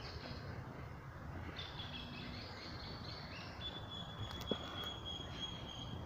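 Woodland ambience at dusk: high, thin, steady calls of insects or birds start about a second and a half in, and a fainter, higher steady tone joins them about halfway through. Underneath is a low, even rumble of the phone being carried on the walk.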